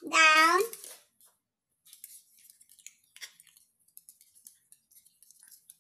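Small dog's toenails clicking and tapping on a hardwood floor as it gets up and moves about, in light irregular ticks. It opens with a short high-pitched voice, under a second long, that is the loudest sound.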